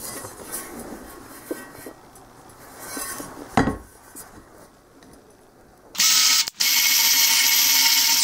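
Sand scraping and a cast iron skillet being handled, with a knock about three and a half seconds in. About six seconds in, a handheld power drill with a wire wheel starts and runs steadily against the welded cast iron pan, with a high whine.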